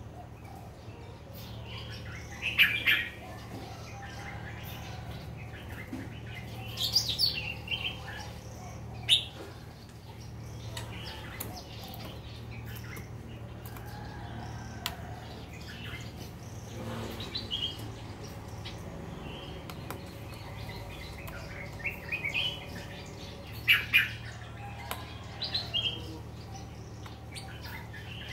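Caged bulbuls giving short, sharp chirping calls at irregular intervals, some in quick clusters, over a steady low background hum.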